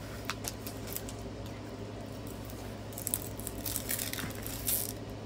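Clear plastic cover film being handled and peeled on a sticky diamond-painting canvas: faint crinkling and small clicks, busier from about three seconds in, over a low steady hum.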